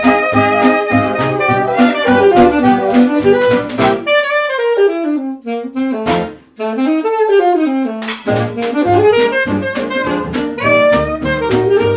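Instrumental background music with a steady drum beat. The beat drops out for a few seconds in the middle while a single melody line runs down and back up, then the beat comes back.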